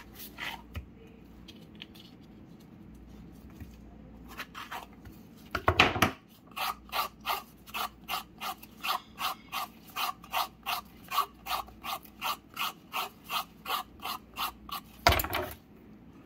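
A hand vegetable corer scraping out the inside of a zucchini in repeated short strokes, about two and a half a second for most of the stretch after a few slower scrapes. Two louder knocks come about six seconds in and near the end.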